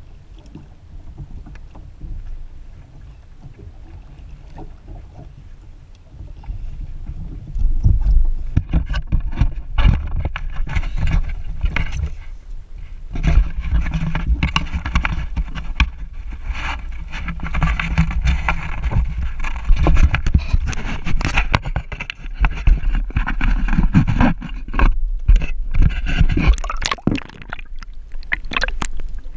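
Knocking and scraping handling noise as an action camera on a kayak is swung about and plunged into the sea, over wind and water noise. The knocks grow dense and loud from about a quarter of the way in.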